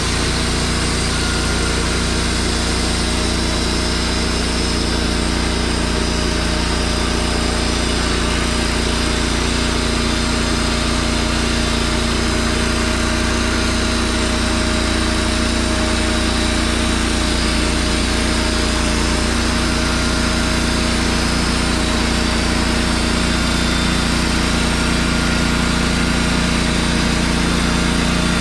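Wood-Mizer LT15 portable band sawmill running steadily under load, its band blade sawing a deep slab cut through a pine log.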